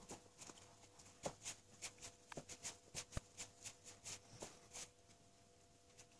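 Faint, irregular crackles and soft taps, about two or three a second, of hands rubbing butter into flour in a plastic bowl: the shortcrust pastry breaking down into a sandy crumb. They thin out about five seconds in.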